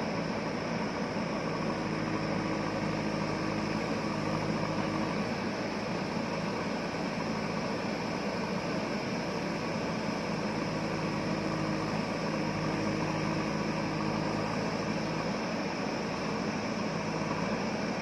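JCB 3DX backhoe loader's diesel engine running steadily under load as the backhoe arm digs and dumps soil, with a higher engine tone that comes and goes at times over a steady hiss.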